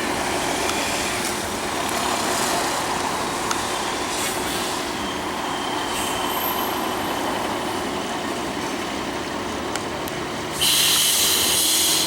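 Steady noise of a jet airliner, with a few light clicks and rattles. Near the end a loud high hiss starts suddenly and lasts about a second and a half.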